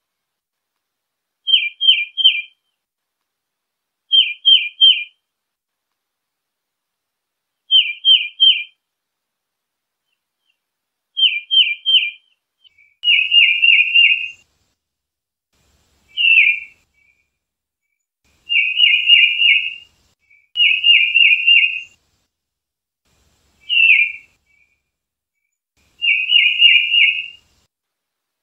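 Tufted titmouse singing short phrases of three quick down-slurred notes every few seconds. About halfway through, the phrases turn into longer, quicker runs of several notes.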